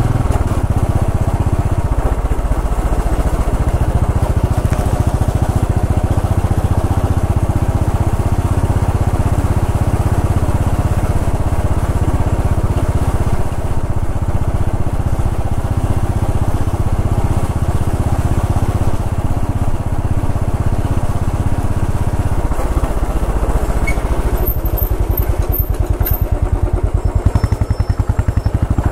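Royal Enfield Bullet 500 EFI's air-cooled single-cylinder engine running under way at low revs, a loud, steady engine beat. Near the end the separate firing pulses become more distinct.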